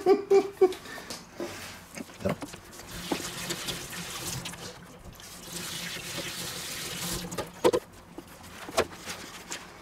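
Water running from a kitchen tap for several seconds, with a short break in the middle, and a few sharp knocks of hands working dough on a wooden board before and after.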